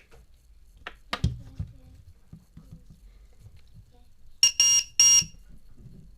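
A LiPo battery low-voltage alarm buzzer gives three quick, loud, high-pitched beeps near the end, the first shorter than the other two. A few sharp clicks come about a second in.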